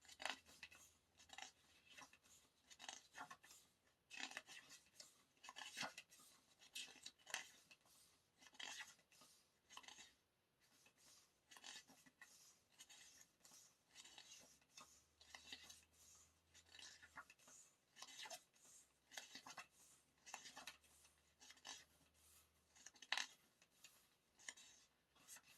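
Faint rustling and small clicks of paper being handled, many short sounds in irregular succession: the glossy pages of an album photo book being turned and held.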